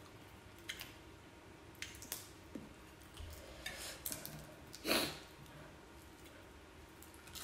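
Fingers tearing fresh greens and mixing rice on a plate, with faint scattered clicks and soft rustles and one louder, short noise about five seconds in.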